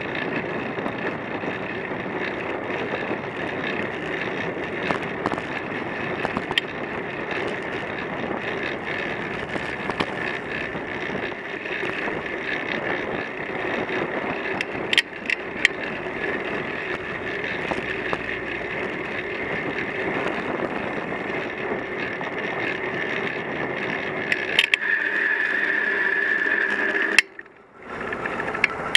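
Bicycle riding in city traffic heard from a camera mounted on the bike: steady wind and tyre noise with scattered sharp clicks and rattles. Near the end a steady high whine rises over the noise, then the sound drops away sharply for about a second.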